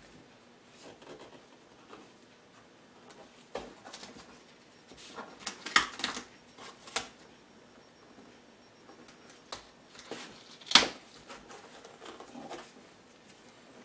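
Gorilla tape being pulled off the roll and pressed onto a 3D-printed plastic horn: scattered rustles and clicks, with a cluster of short, sharp tearing sounds around the middle and one single sharp one later.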